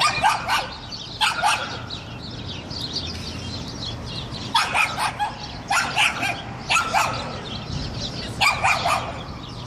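A dog barking in short, high-pitched bursts. There are a couple near the start, then a run of barks from about four and a half seconds in, and another pair near the end.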